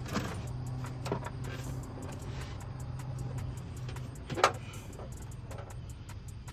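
Stock plastic air intake box being pulled loose in the engine bay: a light knock about a second in and a sharp plastic click about four and a half seconds in, over a steady low hum.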